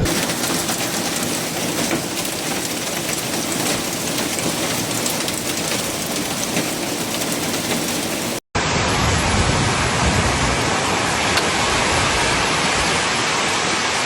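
Heavy rain pouring down in a dense, steady hiss. It drops out for a moment about eight seconds in, then carries on in a second recording of the same downpour.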